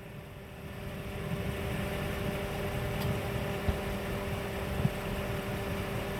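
Steady mechanical hum of an idling vehicle engine, holding a constant pitch and growing slightly louder after about a second. A few faint short pops sound over it.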